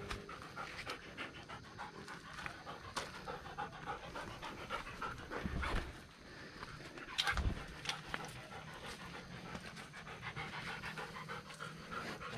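A dog panting, with two dull thumps about five and a half and seven and a half seconds in.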